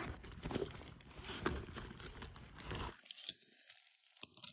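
Rustling and handling noise as things are picked up and moved by hand, dying away about three seconds in, followed by a couple of short clicks near the end.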